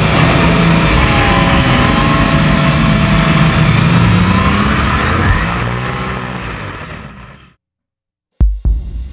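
Off-road race car's engine running hard and revving, its pitch rising and falling, then fading away about two-thirds of the way through. After a short silence, deep thumps begin near the end.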